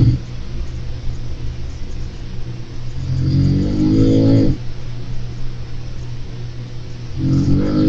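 A person snoring: two slow, low snores about four seconds apart, each lasting about a second and a half.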